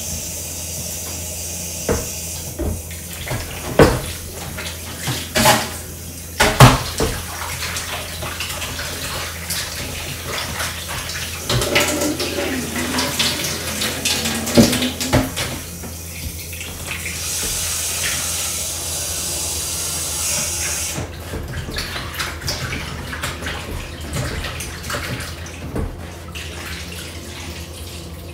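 Raw chicken being washed by hand in a bowl in a kitchen sink: water splashing and running from the tap at times, with knocks and clatter of the bowl against the sink, several sharp knocks in the first few seconds.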